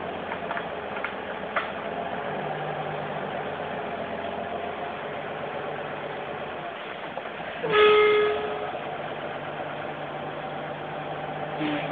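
Heavy truck's engine running steadily as the truck edges onto a log bridge, with a single loud horn blast about a second long, about eight seconds in.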